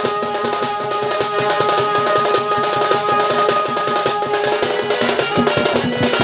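Sambalpuri folk music for a danda dance: fast, dense drumming under a held melodic line.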